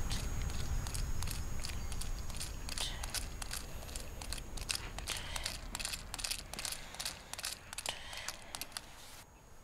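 Many soft, irregular clicks and crackles over a low rumble that slowly fades; the clicking thins out near the end.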